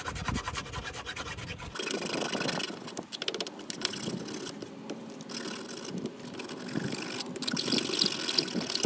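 Hand file scraping back and forth along the freshly cut edge of a plastic panel, knocking down the rough edges.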